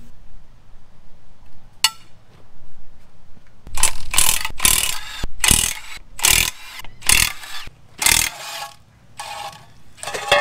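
A hand-held wrench working the flywheel bolts off a Ford 351 V8 on an engine stand. There is a single click, then about eight short bursts of ratcheting about every half second from a few seconds in, and two fainter ones near the end.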